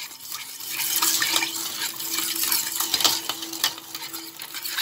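Water with sugar cubes being stirred in a stainless steel pot: sloshing water with many small clinks. The sugar is being dissolved to make a sugar syrup.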